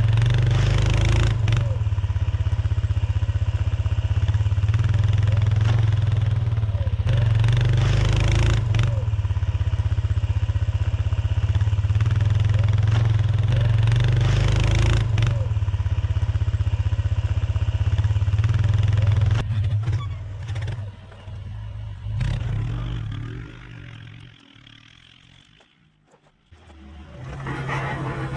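2007 Yamaha Kodiak ATV engine running steadily under load as the quad pushes deep snow with its Warn plow blade. The engine sound dies away after about two-thirds of the way through, is nearly gone for a moment, then returns just before the end.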